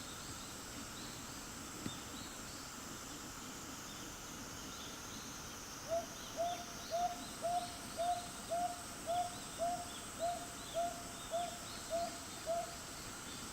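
Northern boobook (Japanese hawk-owl) calling: a series of thirteen soft hoots in pairs, about two a second, starting about six seconds in. Faint insect chirping goes on steadily underneath.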